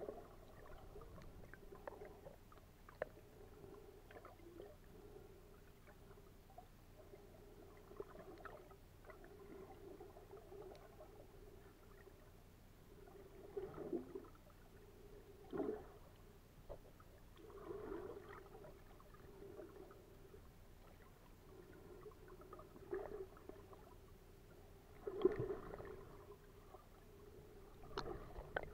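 Muffled underwater sound picked up by a camera held below the surface while snorkeling: a faint steady hum with several short, louder swishes of moving water.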